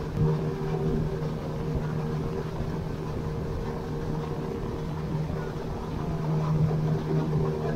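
A small open river boat's motor runs steadily under way, an even drone with a constant hum.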